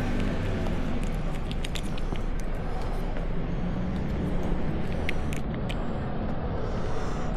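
Street ambience: a steady low rumble of road traffic, with scattered light clicks on top.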